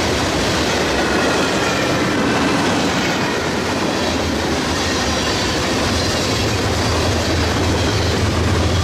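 Freight cars rolling past close by, wheels clacking over the rail joints with a faint squeal of wheels on rail. Over the last couple of seconds the low rumble of a diesel locomotive's engine builds as the trailing locomotive draws alongside.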